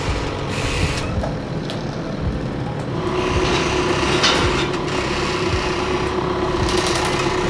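Linde H35 forklift's engine running, with a steady whine joining about three seconds in.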